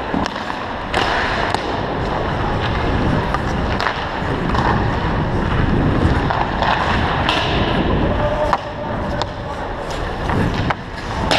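Ice skate blades carving and scraping across the ice, picked up close by a camera on the skater. Several sharp clicks of a hockey stick striking a puck are heard over it.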